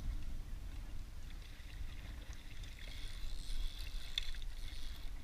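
Spinning reel being cranked to bring in a hooked striped bass, with faint ticks from the reel over steady wind rumble on the microphone.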